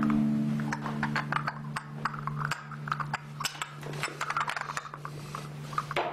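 Light clinks and taps of a tea glass being handled on its saucer at a table, many small clicks scattered irregularly, over a low steady hum.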